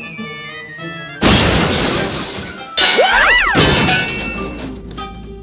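Cartoon sound effects over background music: a falling tone, then two loud crashes about a second and a half apart, each dying away, as a smoke-and-dust cloud bursts over the scene.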